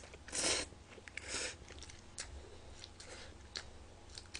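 Instant ramen noodles being slurped from chopsticks: a short slurp just after the start and a fainter one about a second in, then the small wet clicks of chewing.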